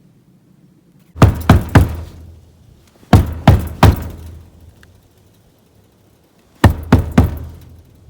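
Hard knocking in three sets of three quick knocks, a couple of seconds apart, each knock ringing out briefly.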